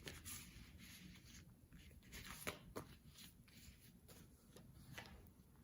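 Faint rustling of paper sticker sheets and packaging being handled, with a few light ticks.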